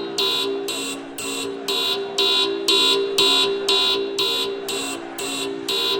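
Electronic alarm sounding: a harsh buzzing beep repeating about twice a second over a steady lower tone, the kind used as an emergency alert signal.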